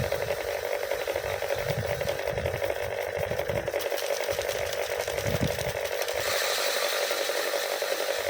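Paddy threshing machine running with a steady hum under a rattling hiss as rice is threshed; the hiss grows stronger about six seconds in.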